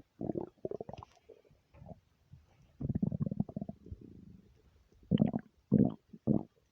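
Human stomach gurgling and rumbling in a string of irregular bursts: several short gurgles at the start, a longer rumble about three seconds in, then three quick gurgles near the end.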